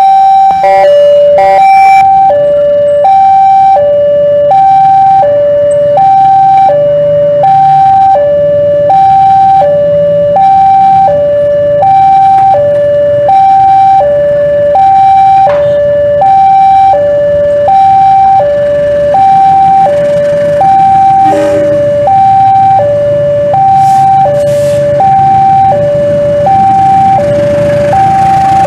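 Railway level-crossing warning alarm sounding continuously, an electronic two-tone signal alternating high and low about once a second. In the last several seconds a low diesel-locomotive engine rumble builds under it as the train reaches the crossing.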